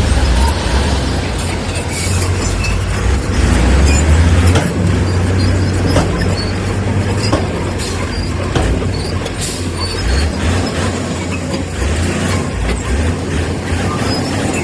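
Komatsu crawler bulldozer working: a heavy diesel engine rumbling under load, with steel tracks and stone clanking and rattling throughout.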